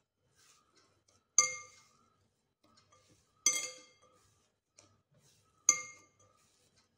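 Glass mixing bowl clinking three times, about two seconds apart, as it is knocked while risen bread dough is kneaded in it; each clink rings on briefly, with soft dough-handling noise in between.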